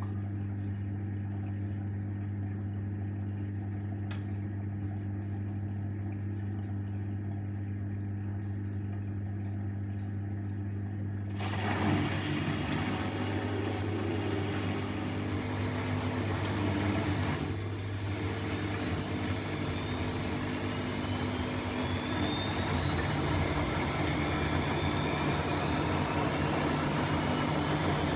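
Bosch Exxcel 1400 washing machine running with a steady low hum. About eleven seconds in, a louder rush of the drum turning comes in. Over the second half the motor's whine climbs steadily in pitch as the drum speeds up into a spin.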